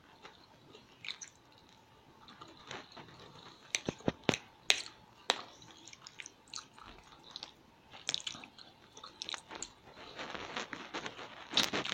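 A person chewing food close to the microphone, with scattered mouth clicks; a run of sharp clicks comes about four to five seconds in.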